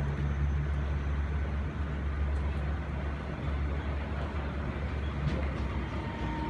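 A Puyuma (TEMU2000) electric express train standing at the platform, its onboard equipment humming low and steady. The deeper hum tones drop away about five seconds in, and a faint steady higher whine begins near the end as another train approaches.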